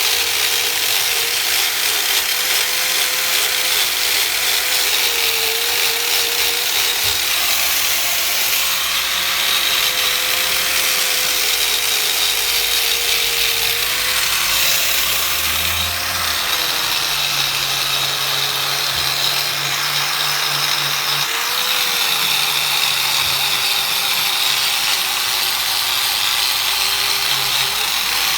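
Angle grinder running continuously as it polishes an aluminium engine case, a steady hiss of the wheel on the metal over a motor whine that wavers and dips in pitch under load, twice most clearly about halfway through and again later.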